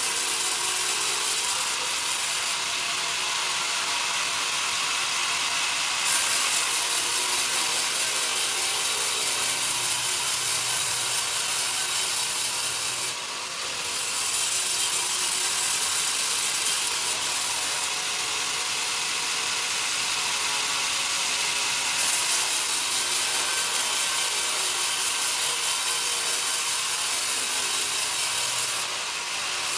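Sawmill band saw cutting young pine timber: a steady high hiss and rasp from the blade running through the wood. It grows louder for two long stretches, each ending abruptly.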